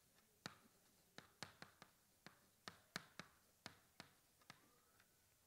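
Chalk tapping and clicking on a chalkboard as words are written: about a dozen faint, short, irregular clicks.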